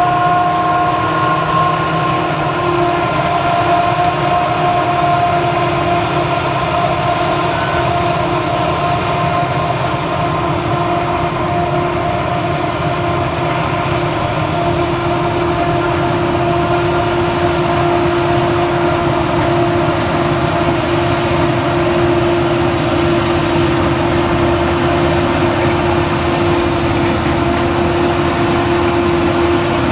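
Claas Jaguar 970 forage harvester, a V8 machine, running under load as it chops millet, alongside a tractor hauling the silage trailer. Steady machinery noise with a held whine of several tones over it.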